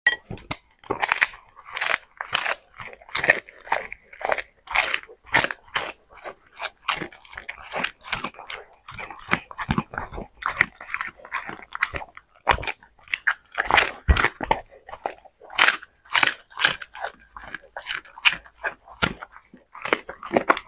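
Black Labrador chewing food, a steady run of sharp crunches and bites, roughly one or two a second.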